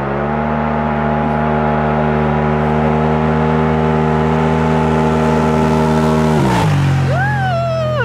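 Polaris RZR Turbo S side-by-side at full throttle on a 0–60 mph run, its turbocharged twin-cylinder engine holding one steady high-revving note as it comes on. About six and a half seconds in it passes close and the note drops sharply to a lower pitch, and a falling whistle follows near the end.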